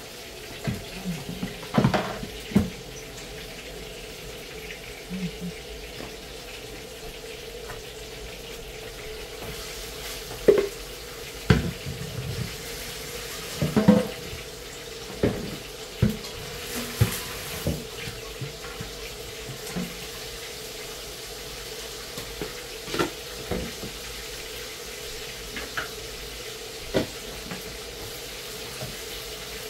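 Water running, with a dozen or so sharp knocks and clinks of pots and utensils scattered through, over a steady low hum.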